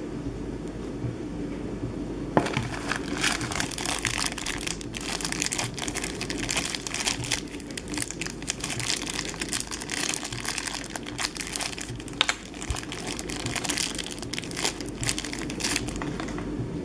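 Thin clear plastic packaging bag crinkling as it is handled, starting with a sharp crackle about two seconds in and going on unevenly until near the end.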